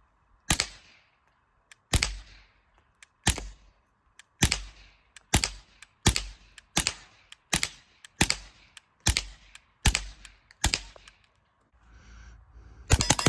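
Suppressed Taurus TX22 Compact .22 LR pistol firing about twelve single shots at a steady, slightly quickening pace. Each shot is a sharp crack followed by a short echoing tail.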